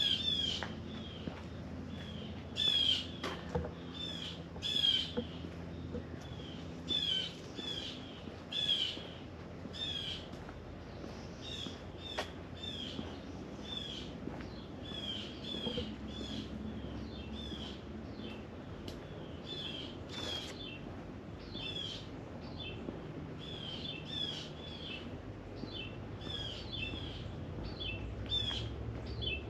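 Wild birds calling: short, sharp calls repeated again and again, a few louder than the rest, over a faint steady low hum.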